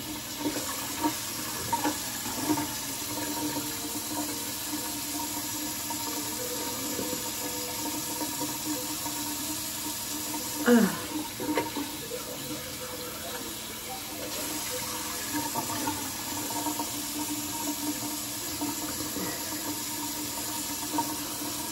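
Bathroom sink tap running steadily while hands splash water onto a face to rinse off a face mask, with a few louder splashes, the loudest about eleven seconds in.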